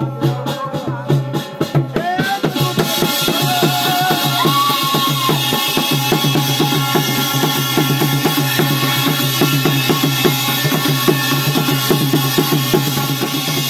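Jagar ritual drumming, loud and fast, with a voice singing over it. About two and a half seconds in, the separate beats give way to a dense, unbroken, faster drumming.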